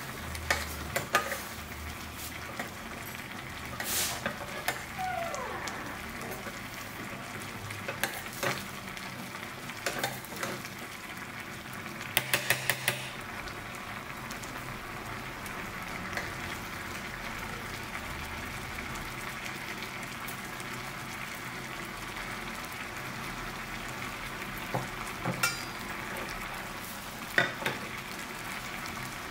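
Thick red split lentil dal bubbling steadily in a stainless steel saucepan on a gas burner. A metal ladle knocks against the pan now and then, with four quick clicks about halfway through.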